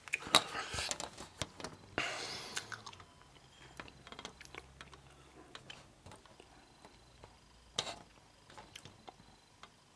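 Grey plastic model-kit sprue handled and turned by hand: scattered light clicks and rustles, busiest in the first three seconds with a short rustle about two seconds in, then only a few faint clicks.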